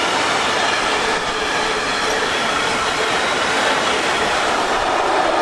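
Freight train tank wagons rolling past close by: steady noise of steel wheels on rail, with steady ringing tones over it.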